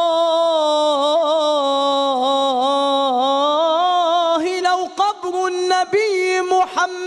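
A man chanting an Egyptian religious ibtihal solo, with no instruments. He holds one long ornamented note that wavers and dips in pitch for about four seconds, then breaks into shorter phrases that slide up and down.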